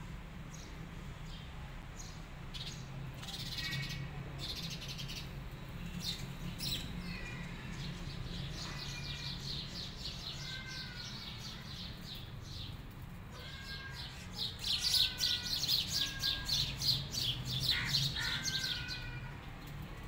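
Small birds chirping and calling, a mix of quick high chirps and short whistled notes. About three-quarters of the way in the chatter turns dense and loudest for a few seconds. A faint steady low hum runs underneath.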